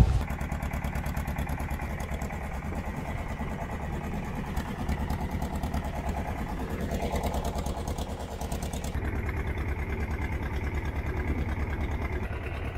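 Fishing boat's engine running steadily with an even, rapid chugging.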